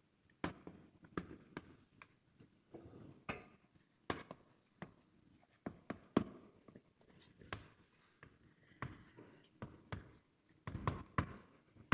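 Writing on a board: an irregular string of sharp taps and short scratches, about one or two a second.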